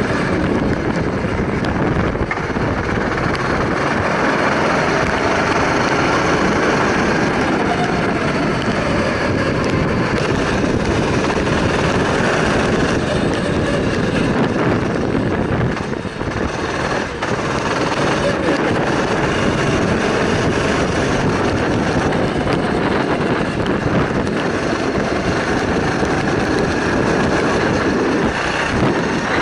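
Go-kart engine running hard, heard from on board, its pitch rising and falling through the corners under a steady rushing noise. The sound drops briefly about halfway through.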